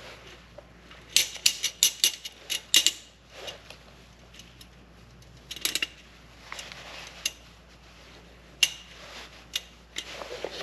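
Small steel parts of an AR-15 lower receiver clicking and clinking as a spring-loaded detent pin is pushed down with a small tool and the parts are worked into place. The sharp clicks come in irregular clusters, with a short stretch of scraping in between.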